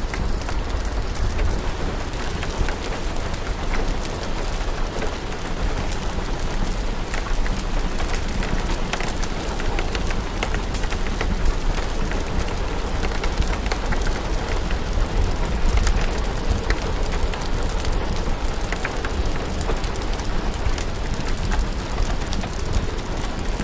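Steady rain mixed with a crackling fire: a constant hiss of rain with many small, sharp crackles scattered throughout, over a low rumble.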